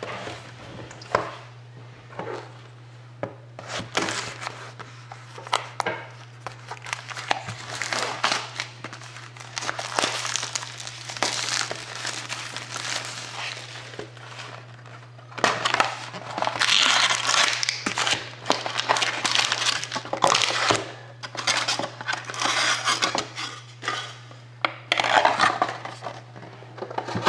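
A sealed box of trading cards being unwrapped and opened by hand: irregular crinkling and crackling of plastic wrap with cardboard scraping and sharp clicks, busiest in the second half, over a steady low electrical hum.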